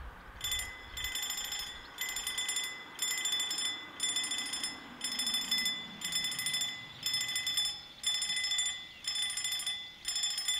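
Railway level-crossing warning signal sounding: a high electronic ringing tone, pulsing about once a second.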